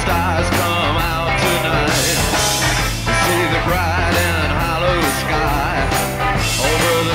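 Rock music with a singer over bass and a steady beat of about two a second.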